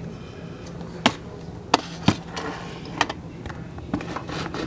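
A handful of sharp, irregularly spaced knocks and clicks, the loudest about one and two seconds in.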